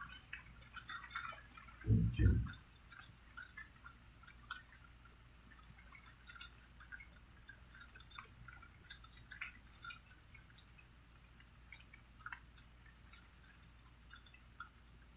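Rain dripping: scattered drops ticking at irregular intervals over a steady low hum, with one brief low thump about two seconds in.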